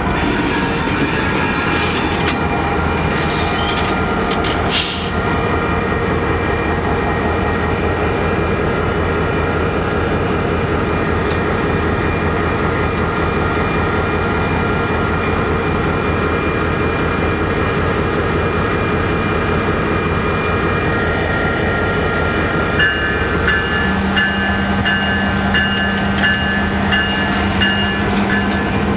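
Union Pacific freight train rolling past: a steady rumble of cars with high squealing wheel tones and a sharp clank about five seconds in. Near the end a regular, evenly repeating ring joins in.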